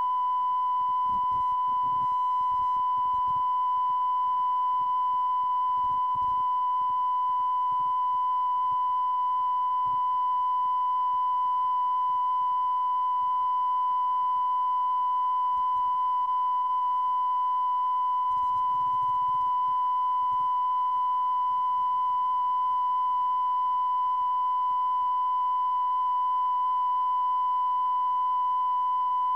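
Steady line-up test tone of the kind recorded with SMPTE color bars at the head of a videotape: one unbroken pitch at an even level.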